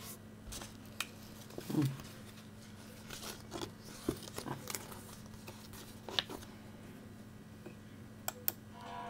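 Handling noise of a paperback road atlas: scattered clicks and crinkles of its cover and pages as it is lifted and held up, with a louder bump about two seconds in. A steady low hum sits underneath.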